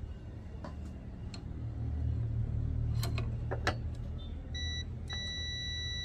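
Digital multimeter's continuity buzzer sounding as its probes touch the terminals of a washing machine heating element: a short beep about four and a half seconds in, then a steady high beep held from about five seconds on, a sign that the element's coil is not open. Before it, a few light clicks of the probes and element being handled over a low rumble.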